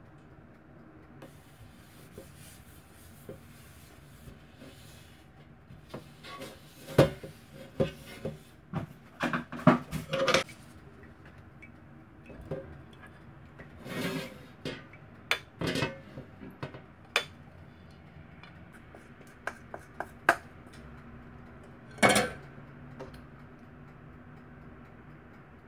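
A hand rubbing oil over a metal baking tray, with irregular clinks, knocks and scrapes of a whisk and spoon against the tray and mixing bowl as the batter goes in.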